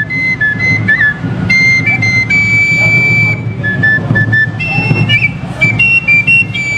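A small wooden end-blown flute playing a high, shrill melody of a few held notes that step up and down, with quick ornamental turns about a second in and again near five seconds.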